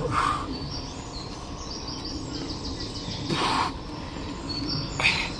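A small bird chirping in rapid high trills, repeated several times, with short bursts of noise near the start, about three and a half seconds in, and again near the end.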